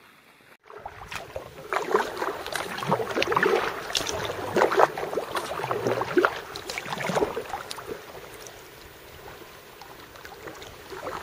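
Kayak paddle strokes: a double-bladed paddle dipping and splashing through the water in irregular strokes, with drips off the blades, busiest in the first half and lighter near the end.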